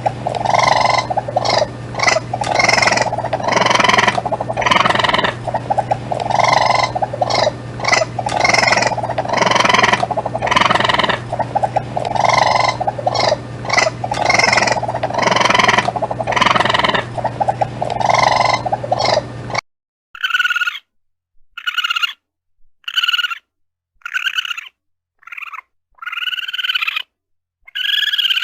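Raccoon calls from two recordings. For the first two-thirds, a dense run of repeated calls over a steady low hum. Then, after a sudden cut, a series of about eight short, separate calls with silent gaps between them.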